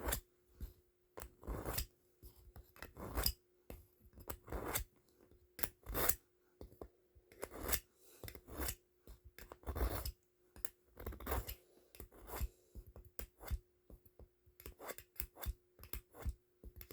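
Knife blade drawn repeatedly across a sharpener in short scraping strokes, irregular and closer together toward the end, as a final set of passes to bring the edge to razor sharpness.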